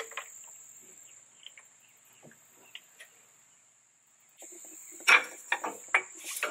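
Insects chirping in a steady high drone, with a cluster of sharp metallic clinks and knocks from about four and a half seconds in as metal parts are handled at a pickup truck's rear axle and leaf spring.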